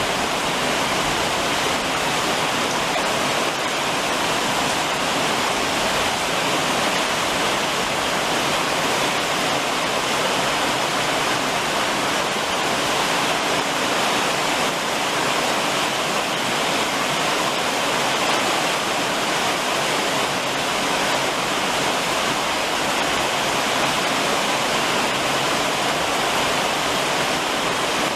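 Heavy summer rain drumming steadily on a roof.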